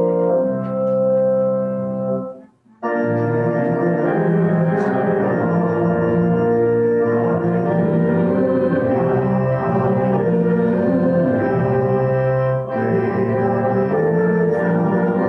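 Organ playing sustained chords that move from one chord to the next, breaking off briefly about two and a half seconds in and then resuming.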